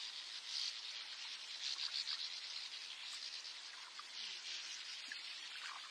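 Quiet morning lakeside nature ambience: a faint, steady high hiss with a few faint, scattered bird chirps.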